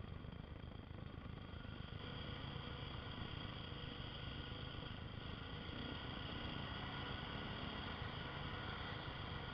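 Dual-sport dirt bike engine running steadily as the bike rides along a dirt trail, picked up by a helmet camera. It gets a little louder about two seconds in.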